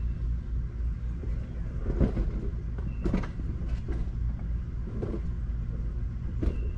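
A steady low engine hum, with about five knocks and clatters of tools being handled in a work van's storage bins; the sharpest knock comes near the end.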